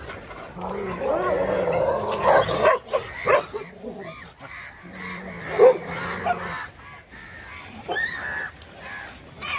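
Stray dogs whining and yipping over their food, in irregular wavering cries with one sharper yelp about halfway through. A low steady hum comes and goes behind them.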